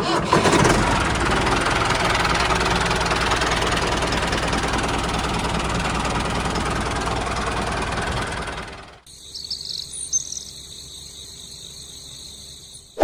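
Tractor engine running steadily for about nine seconds, then cutting off. A fainter, high-pitched sound follows.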